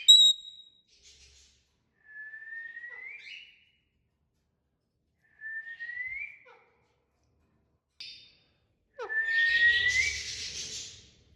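Pet parrot whistling a rising note four times, a few seconds apart, with a short sharp higher note right after the first. The last whistle comes with a rough hissing burst over it.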